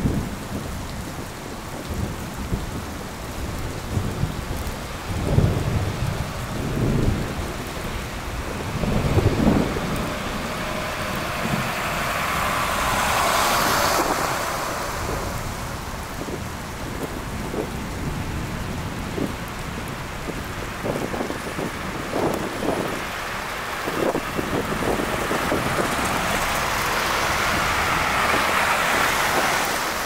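Snowstorm city street ambience: a steady hiss of wet snow and slush, with vehicles swishing past on the slushy road, one swelling by about 13 seconds in and another building near the end. Irregular low thumps and rumbles come through in the first ten seconds.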